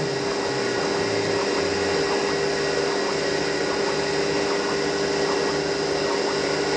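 CNC mini mill running a program: the spindle motor gives a steady whine while the axis stepper motors hum underneath, their low tones stepping up and down in pitch as the table moves.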